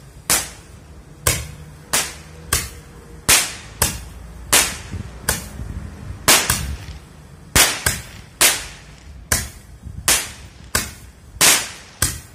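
Roman candle–type firework tube firing a string of sharp pops, about one every three-quarters of a second, each with a short ringing tail.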